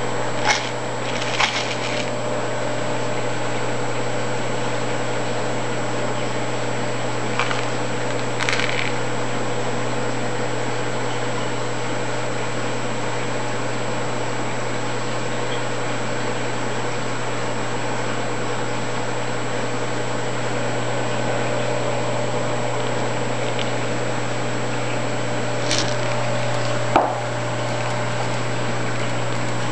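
Aquarium pumps and filters running, a steady low hum, with a few short clicks and knocks from handling the camera.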